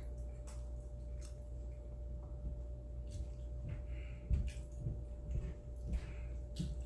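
A person eating spaghetti and meatballs up close: wet chewing and mouth sounds with scattered small clicks, over a steady low hum.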